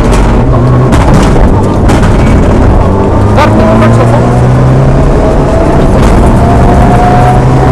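Mitsubishi Lancer Evolution IX rally car's turbocharged four-cylinder engine at full throttle, heard loud inside the cabin. Its pitch climbs steadily through a gear from about three seconds in. A few short sharp cracks come through, one where the new climb begins.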